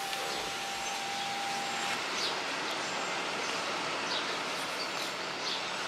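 Steady hiss of outdoor background noise with a few faint high bird chirps. A thin steady tone sounds through the first two seconds, then stops.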